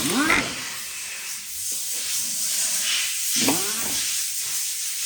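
Steady hissing rush of oil draining from the gearbox into a catch pan.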